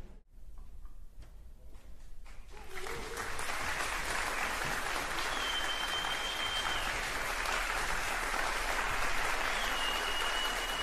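Audience applauding in a theatre: a few scattered claps swell about two and a half seconds in into steady, full applause. A thin high tone sounds twice over the clapping.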